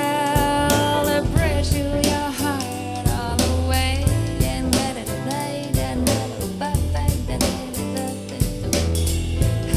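Soul jazz song with a sung melody over bass and a drum kit, played back through in-ear monitors.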